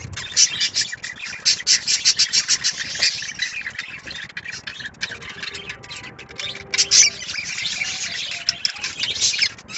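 Budgerigars chattering: a quick run of short, scratchy chirps for the first few seconds, thinning out to scattered chirps, with a louder burst about seven seconds in.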